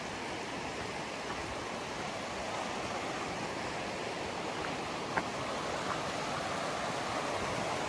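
A river rushing over rocks: a steady wash of water noise, with a faint tick or two about five seconds in.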